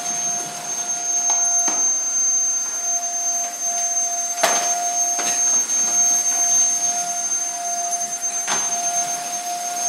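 Vacuum cleaner running steadily, its motor giving a constant whine over a rushing noise. A sharp knock comes about four and a half seconds in, the loudest moment, and a second one about eight and a half seconds in.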